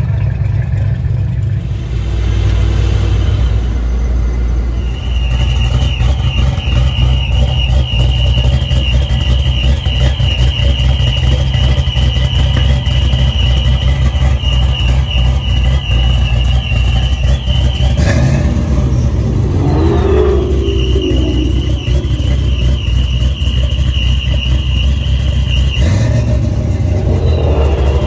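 Black SN95 Ford Mustang GT's V8 idling loudly through its exhaust. The throttle is blipped a couple of times in the second half.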